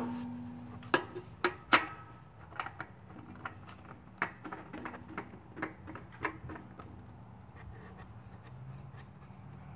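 Irregular clicks and knocks from handling a new spin-on oil filter and threading it onto a mower engine by hand. The first knock is sharp and rings briefly; the rest come at a steady run of smaller clicks for about six seconds, then die away.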